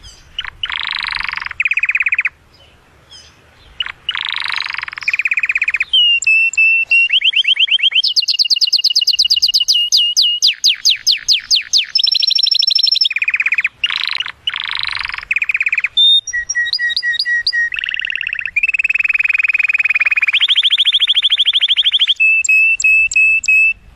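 Male domestic canary in full song: phrase after phrase of rapid trills and rolling runs of repeated notes, changing pitch and speed from one phrase to the next, with a brief pause about two seconds in. An excited courtship song of the kind meant to bring a hen into breeding condition.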